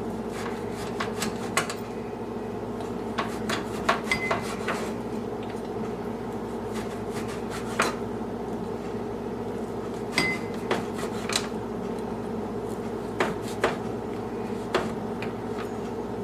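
Kitchen knife cutting firm, slightly stale French bread into cubes, the blade knocking on the cutting board at irregular intervals over a steady low hum.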